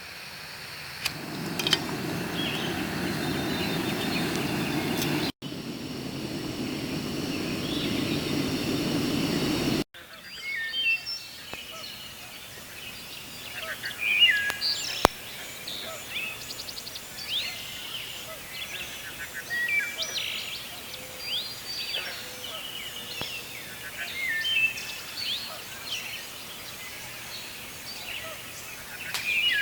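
A steady rushing hiss for about the first ten seconds, broken by two abrupt cuts. Then wild birds singing and chirping, many short whistled notes from several birds at once.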